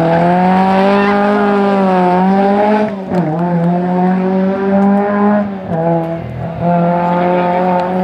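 Classic Fiat rally saloon's engine accelerating hard at high revs. Its pitch drops sharply twice, about three seconds in and again near six, as it changes up a gear, then climbs again.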